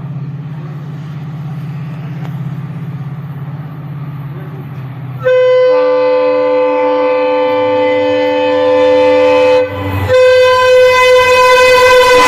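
WDP4D diesel locomotive's EMD two-stroke engine humming, then its horn sounds two long blasts. The first starts suddenly about five seconds in and lasts some four seconds; the second follows after a brief break.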